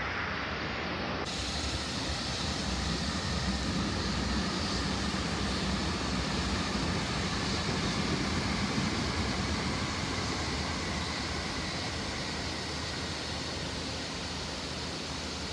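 E7 series Shinkansen passing at speed along an elevated viaduct some way off: a steady rushing rumble that swells through the middle and eases off near the end.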